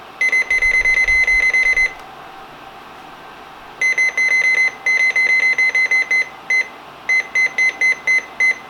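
Midland 74-200 weather radio's keypad beeper sounding runs of short, high-pitched beeps, about eight a second, as buttons are pressed and held to step through digits while programming county codes. The first run stops about 2 s in; after a pause of about two seconds the beeping starts again and carries on in short runs with brief gaps.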